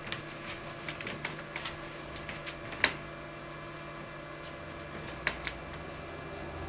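Quiet stage room tone with a low steady hum and scattered light clicks and taps from performers moving on stage. The sharpest click comes about three seconds in, with another a little past five seconds.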